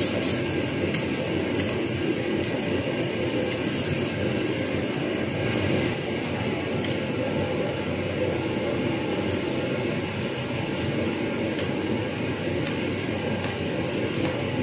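Egg, sausage and onion frying in a pan on a portable gas camping stove: a steady hiss of burner and frying throughout, with a few light knife clicks on a cutting board.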